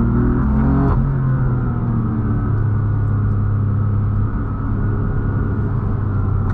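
F80 BMW M3's twin-turbo inline-six engine running steadily as the car drives, with a brief change in engine pitch about a second in.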